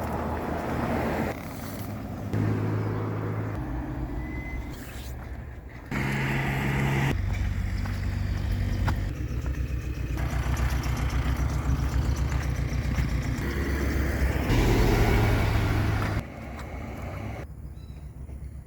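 Motor vehicle running with road noise, steady low engine hum under a noisy hiss, in stretches whose level and pitch change abruptly several times.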